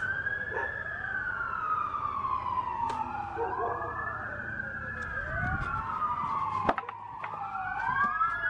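Sirens of approaching fire apparatus in wail mode: at least two overlapping sirens, each rising quickly and then falling slowly, over and over. A few sharp clicks cut through, with the loudest snap about two-thirds of the way through.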